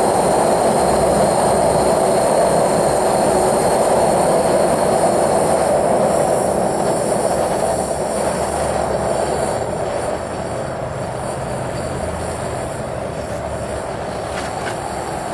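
Gas burner firing a small Micro-Mini melting furnace, a steady loud rushing hiss of the burner flame. It eases somewhat lower after about eight to ten seconds.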